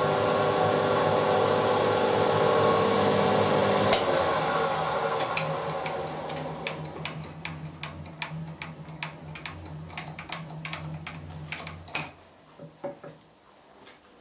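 Vertical milling machine spindle running as a centre drill spots a hole in a square metal bar. About four seconds in the cutting stops and the quill is raised while the spindle keeps turning, with many light metallic clicks. Near the end the machine stops with a sharp click.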